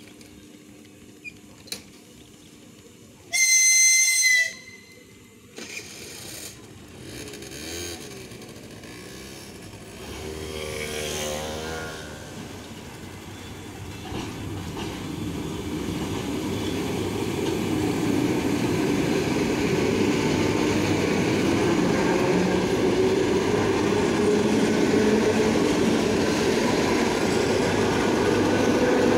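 ER9M electric multiple unit sounds one short, high-pitched whistle blast about three seconds in. It then comes on and runs past close by, the rumble of its wheels and running gear growing louder and then holding steady.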